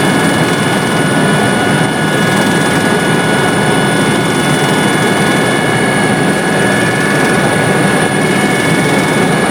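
Helicopter in flight: a loud, steady rush of engine and rotor noise with several high, steady whining tones over it.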